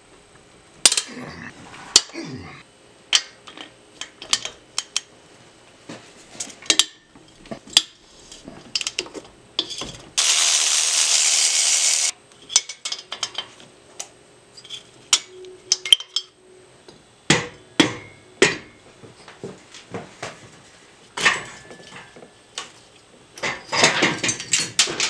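Metal tools clinking and knocking against a Harley-Davidson Twin Cam engine's top end as it is taken apart, with a red cordless power tool running for about two seconds near the middle on the cylinder head bolts.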